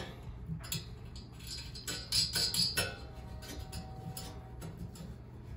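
Light scattered ticks and a brief scrape of a small metal screw being turned by hand into the steel bracket of a turkey fryer stand, with a low steady hum under it.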